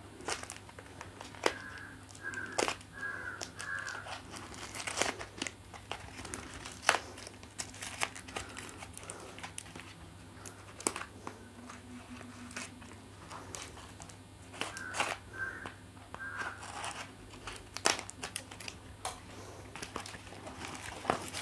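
Paper and plastic wrapping crinkling and tearing in irregular rustles and crackles as a piece of wrapped glassware is unwrapped by hand.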